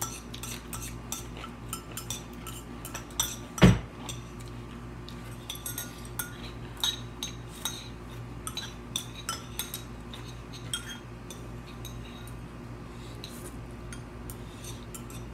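Spoons and chopsticks clinking and scraping against ceramic bowls while noodles are eaten, as many small scattered clicks. One much louder knock comes about three and a half seconds in.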